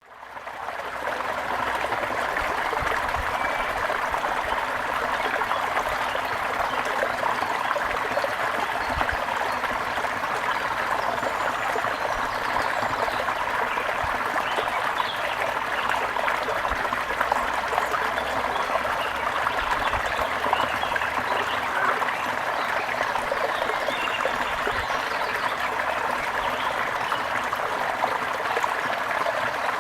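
Waterfall: a steady rush of falling and splashing water, fading in over the first second.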